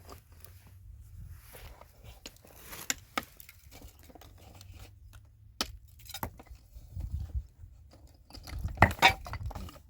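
Irregular clicks, knocks and crunching noises, with a louder cluster of knocks near the end.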